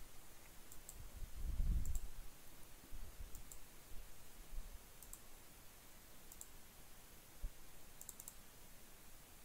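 Computer mouse button clicking several times at irregular intervals, with a quick run of three clicks near the end. A low, muffled rumble about two seconds in is the loudest sound.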